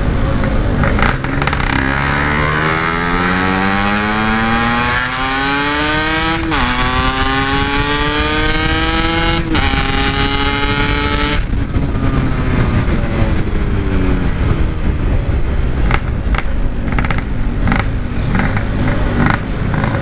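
Yamaha RX-King 135cc two-stroke single with a Packing Power exhaust, accelerating hard through the gears. The pitch climbs and drops sharply at upshifts about six and a half and nine and a half seconds in, holds briefly, then falls away as the throttle closes. It runs on lower and rougher after that.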